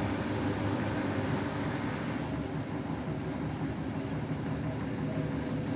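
Beko WTK104121W washing machine running steadily, its drum motor humming as it tries to take the rinsed load up to spin. It gives up on the spin, a sign that it has judged the load too unbalanced to spin.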